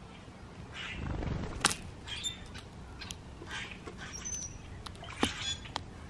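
Wild birds calling: short scratchy notes recurring about once a second, with a brief high whistle partway through. Two sharp clicks and a short low rumble come through as well.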